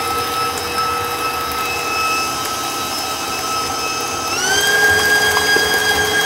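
Bowl-lift stand mixer's motor running with the flat paddle beating egg into choux paste, a steady whine. About four seconds in the pitch glides up as the speed is turned up, then holds at the higher speed.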